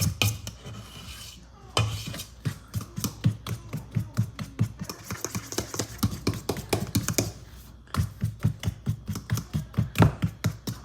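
A fork beating cake batter in a mixing bowl: quick, rhythmic clicks of the fork against the bowl, about four or five a second, with short pauses about a second and a half in and near eight seconds in.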